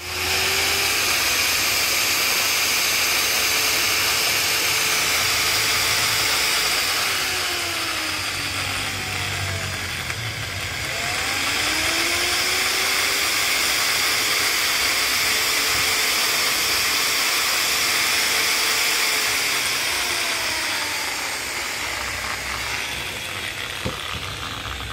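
Electric grinder cutting metal with an abrasive disc: a loud, steady high hiss over the motor's whine. Twice, about a third of the way in and again near the end, the whine drops in pitch and level as the cut loads the motor, then climbs back.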